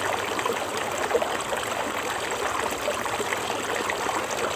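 Shallow stream running over stones: a steady, even babble of flowing water.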